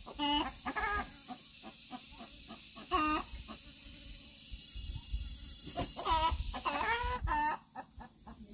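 Chickens clucking in a handful of short calls, over a steady high hiss that drops away near the end, with scattered light clicks.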